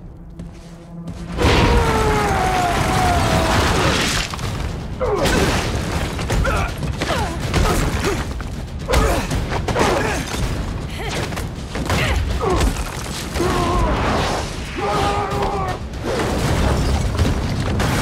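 Film fight soundtrack: after a hushed first second or so, a sudden loud hit, then a run of heavy impacts, crashes and rushes of a superhuman brawl, with a falling whine near the start and music mixed underneath.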